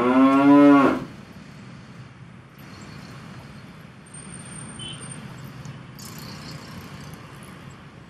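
Cattle mooing: the end of one long, loud moo that rises in pitch and stops about a second in. After it there is a steady faint background hiss, with a brief thin high whistle around four seconds in.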